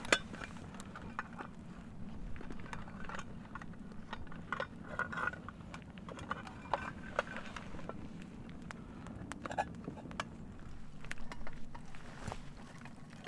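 Scattered light clicks and knocks, irregular and a few a second, over a steady low hum.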